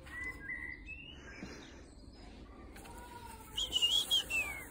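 Birdsong: a bird singing clear whistled notes that glide up and down, loudest in a wavering run near the end that falls away.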